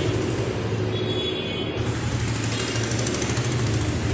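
Marker squeaking and scratching on a whiteboard as words are written: a short high squeak about a second in, then fast, fine scratching strokes. Under it runs a steady low hum.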